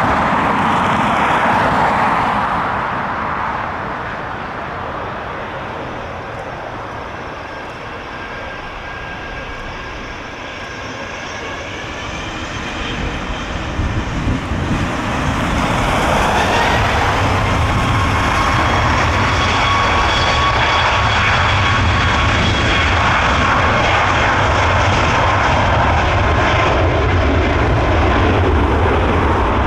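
A Boeing 737's twin jet engines spooling up for takeoff. A thin whine rises in pitch about halfway through and the level climbs. The engines then run loud and steady at takeoff power, with a deep rumble, as the jet begins its takeoff roll.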